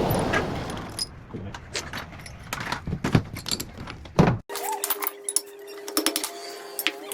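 Metal parts and tools clinking and knocking during rickshaw axle repair work, with a louder knock about four seconds in. After an abrupt cut, a steady hum with rapid clicking.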